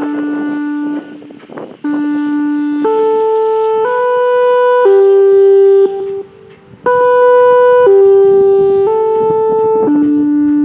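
A slow tune of held single notes on a wind instrument, each note about a second long and stepping up and down in pitch. The tune breaks off briefly about a second in and again a little past the middle.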